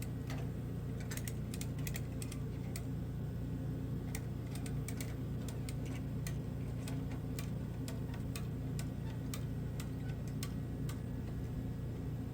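A farm machine's engine running steadily at low speed, with scattered sharp clicks and ticks over it.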